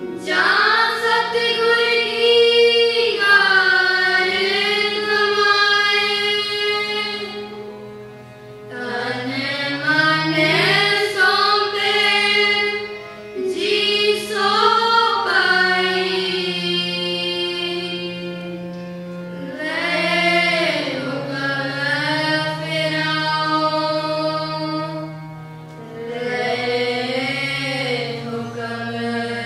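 Sikh kirtan in Raag Dhanasari: a group of children's voices sings in unison in long gliding phrases over held harmonium notes, with tabla accompaniment.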